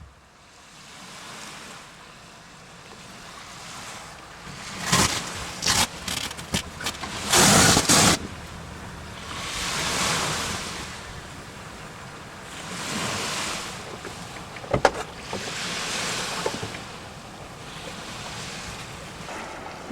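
Surf washing in, a rushing noise that swells and fades every few seconds, with several loud bursts of wind on the microphone from about a quarter of the way in.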